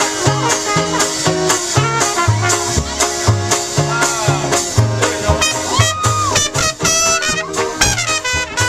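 Swing jazz music with brass horns over a steady, evenly stepping bass line, the horns bending some notes.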